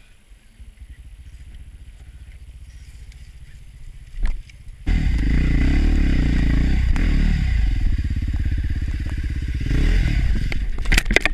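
Husqvarna TE511 single-cylinder four-stroke enduro bike engine idling quietly, then, about five seconds in, suddenly loud as it is ridden hard, the pitch rising and falling with the throttle. Near the end a quick clatter of knocks and scrapes as the bike falls over.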